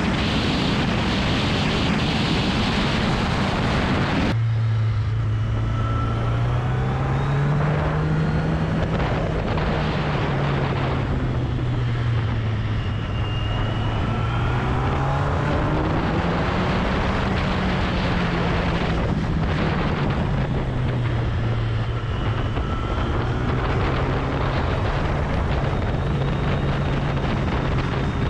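A sport motorcycle's engine heard from on board, with wind rush on the microphone, its note rising and falling slowly several times as the throttle opens and closes, then holding steady near the end. About four seconds in, the sound changes abruptly from mostly wind rush over a steady engine note to a clearer engine note.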